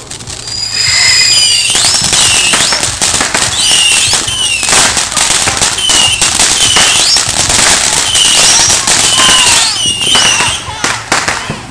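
Ground fountain firework going off: dense crackling with many short whistles gliding up and down, building up about a second in and dying away near the end.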